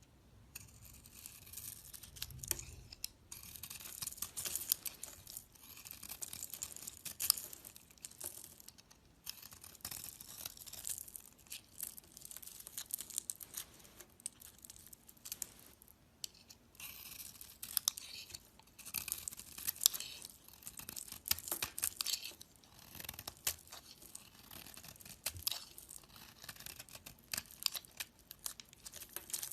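Blade carving and scraping a bar of soap, a crisp crackling and scratching with many small sharp clicks as the soap cuts and flakes.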